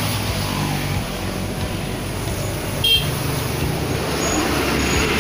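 Motor vehicle engine running steadily, with a brief high chirp and click about three seconds in.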